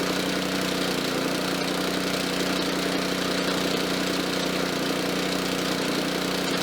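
Gasoline engine of a portable air compressor running steadily, driving the compressor pump as it builds tank pressure.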